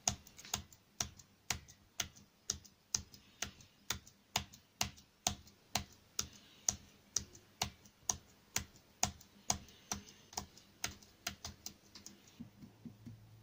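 A steady run of sharp clicks like keystrokes, evenly spaced at about two a second, growing weaker near the end.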